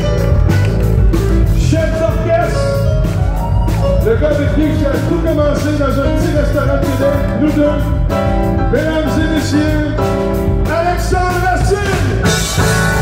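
Live band playing an upbeat song: a man singing into a microphone over electric guitar and a drum kit keeping a steady beat.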